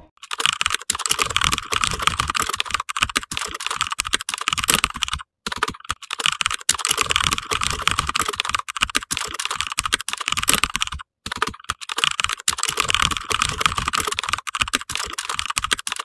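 Rapid computer keyboard typing: a dense run of key clicks in three stretches, broken by short pauses about five and eleven seconds in.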